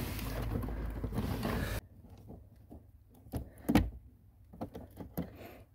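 Rustling handling noise that cuts off suddenly about two seconds in, followed by a few scattered knocks and clicks as wiring and plastic trim are handled around a car's centre console.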